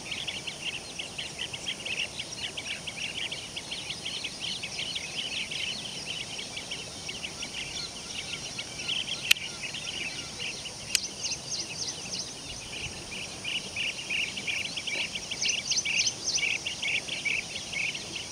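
A chorus of many blue-tailed bee-eaters calling with short, rapid trilled notes, the constant chatter of a breeding colony. Higher-pitched calls join in the second half. Two sharp clicks come about halfway through, a couple of seconds apart.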